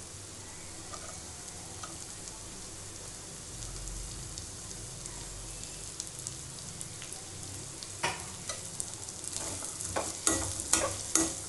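Julienned carrots sizzling gently in ghee in a kadai. From about eight seconds in, a steel slotted spoon scrapes and clatters against the pan in quick strokes as they are stirred.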